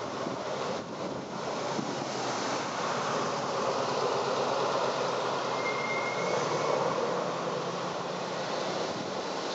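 Cars driving past close by on the road, a steady rush of tyre and engine noise that swells in the middle as one goes by. A brief faint high squeak comes about six seconds in.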